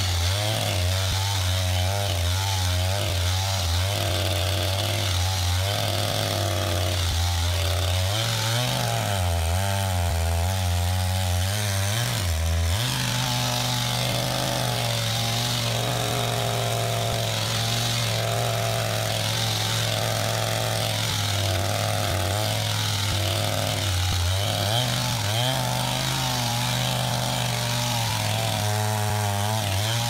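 Two-stroke gasoline chainsaw running at high revs while cutting through a very large log. The engine note dips and picks back up several times as the bar works in the cut.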